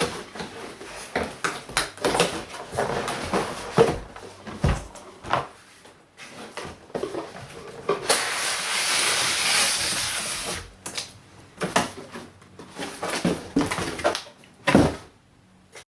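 Cardboard box and packaging being handled and opened by hand: irregular knocks, taps and rustles, with a steady rushing scrape lasting a couple of seconds about halfway through.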